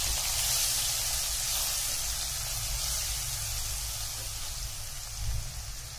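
Crushed garlic, red chilli powder, turmeric and hing sizzling in hot oil in a steel pan as they are stirred. The flame is already off, so the sizzle comes from the pan's held heat. It is a steady, even hiss that eases off slightly toward the end.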